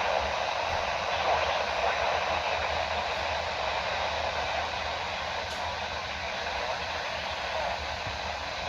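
Steady radio static: an even hiss with a faint low hum beneath it, and no voice coming through.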